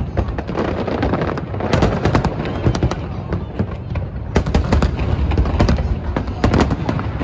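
Aerial fireworks shells bursting in rapid succession: many sharp cracks and bangs over a continuous deep rumble of booms, with thicker clusters of cracks about two, four and a half, and six and a half seconds in.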